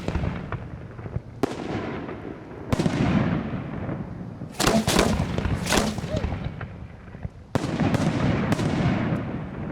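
1.3G fireworks display: aerial shells bursting in a string of about eight sharp reports, each trailing off in a low rolling rumble, some coming in quick pairs.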